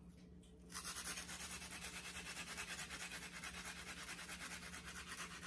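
A raw onion being grated on a hand grater for its juice: quick, even rasping strokes, several a second, starting about a second in.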